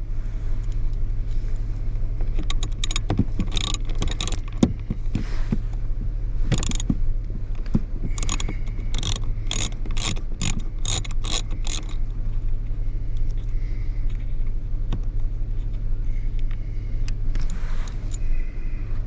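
Ratchet socket wrench clicking as bolts are turned out of the blower motor assembly: scattered clicks at first, then a regular run of about three clicks a second, over a steady low hum.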